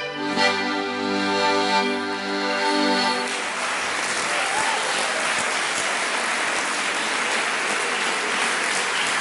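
Piermaria button accordion holding a final chord, which stops about three seconds in. Audience applause follows and carries on steadily.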